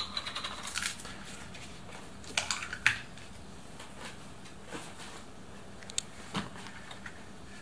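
Plastic screw cap twisted off a milk bottle with a crackle of small clicks, then the cap and bottle set down on a kitchen counter with a few light knocks.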